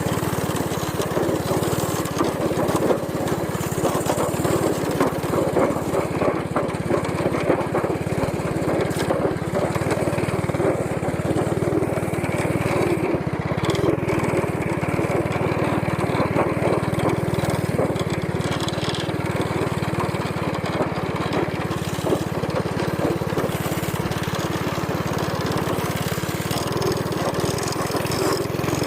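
Small single-cylinder go-kart engine, a Predator 212, running steadily while the kart is ridden.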